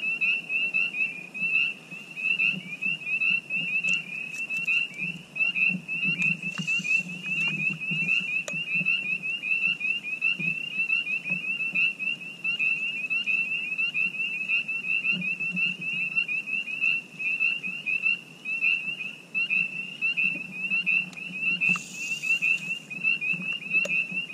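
Chorus of frogs calling: many short, high, rising peeps overlapping in a steady, unbroken stream.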